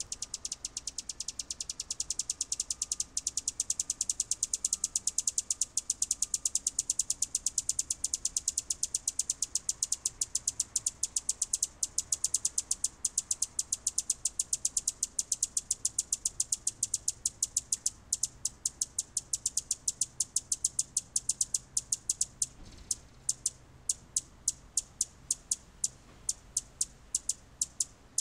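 High-pitched begging chirps of hummingbird nestlings, a rapid even run of short cheeps, about eight a second, slowing to about three a second near the end.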